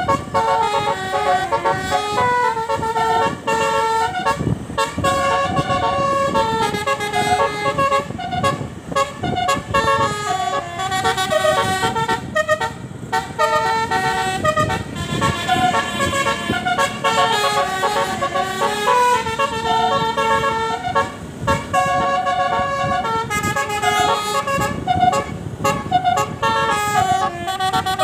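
Basuri V3 telolet musical horn on a tour bus playing a melody of short horn tones that step up and down in pitch, repeated over and over, with a low rumble beneath.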